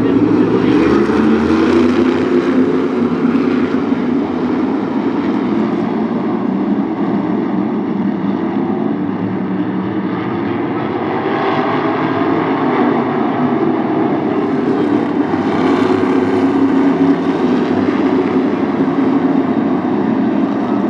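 A field of modified stock race cars running laps on an oval track, their engines making a continuous loud drone that swells several times as cars pass.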